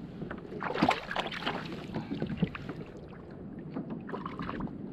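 Sea water slapping and splashing against a plastic sit-on-top fishing kayak, with a louder splash about a second in and scattered small knocks from gear being handled.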